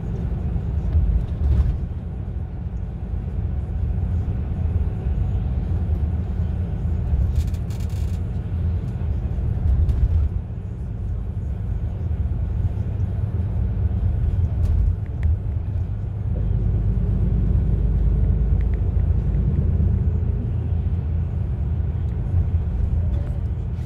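Steady low rumble of a bus driving at speed, engine and tyre noise heard from inside the cabin.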